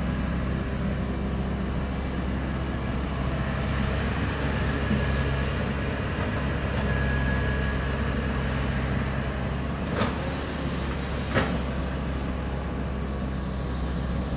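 Komatsu hydraulic excavator's diesel engine running steadily as the machine works, with two sharp knocks about a second and a half apart near the end.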